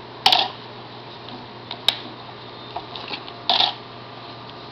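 Handling noise from a duct tape wallet: a few short rustles and scrapes, the loudest just after the start and about three and a half seconds in, with a sharp click about two seconds in.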